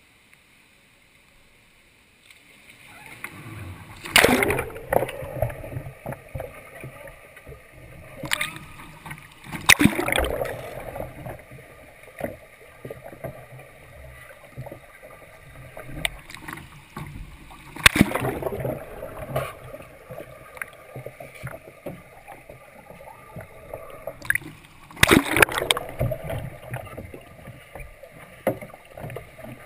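Water sloshing and gurgling around a capsized sea kayak as the paddler works the paddle to roll, heard through the bow camera while it is underwater, with a handful of sudden loud splashes.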